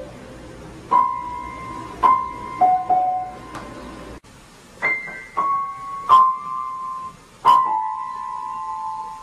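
Piano notes struck one at a time, roughly a second apart, each left to ring, with a brief break about four seconds in.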